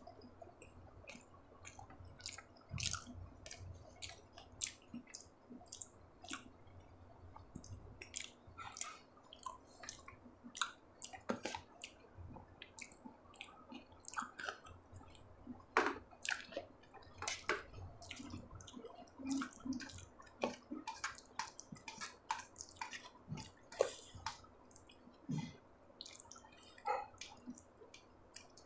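Close-miked eating of sabudana khichdi (sago pearls, potato and peanuts) with curd: wet chewing with many irregular sticky mouth clicks and smacks, and the soft squish of fingers working the food.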